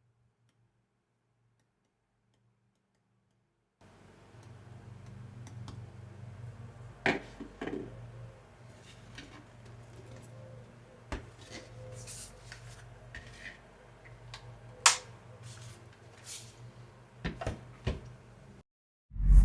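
Handling sounds of a laptop and its packaging: scattered clicks, taps and knocks over a low steady hum, ending in a loud thump.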